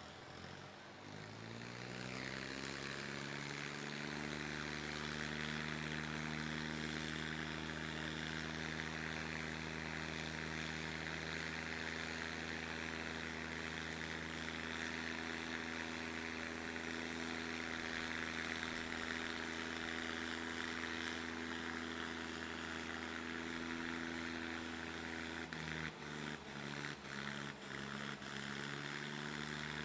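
Tractor diesel engines from a John Deere 5210 and a Preet 6049 rev up over the first couple of seconds, then run at a steady full-throttle drone under heavy load as the two tractors pull against each other. Near the end the drone wavers and dips briefly a few times.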